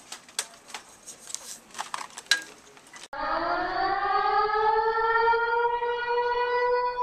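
A few scattered clicks and knocks, then about three seconds in a siren starts abruptly, winding up in pitch and settling into a loud steady wail.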